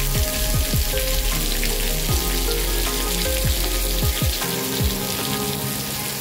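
Heavy rain pouring steadily in a windy storm: a dense hiss of rain, with soft background music of held notes underneath. A low rumble underneath drops away about two-thirds of the way through.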